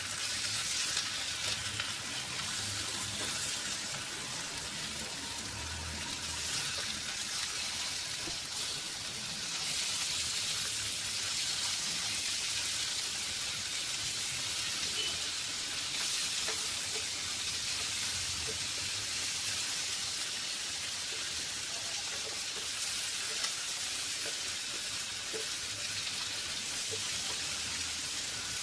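Sardines frying on medium flame in a nonstick pan, in a little coconut oil and the fat rendering out of the fish, with a steady sizzle. Light scrapes and taps come from a fork and a wooden spatula as the fish are turned over.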